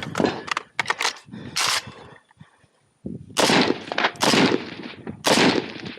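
Gunfire at a 2-gun match: a few quick sharp shots in the first two seconds, a brief quiet gap, then three loud shots about a second apart, each ringing out.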